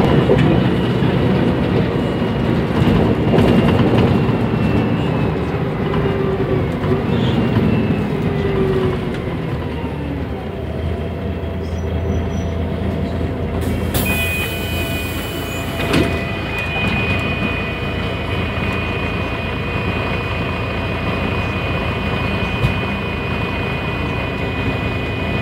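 Cabin sound aboard a Mercedes-Benz O345 Conecto city bus: the diesel engine's drone eases over the first ten seconds and then holds steady. About fourteen seconds in comes a hiss of compressed air lasting about two seconds, then a knock, followed by a steady high whine.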